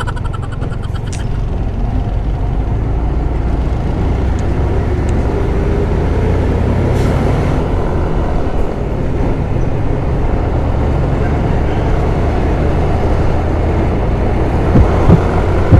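Motorcycle riding noise picked up by a lavalier microphone in the rider's helmet: a steady low rumble of wind and engine with a faint hum that drifts slowly in pitch.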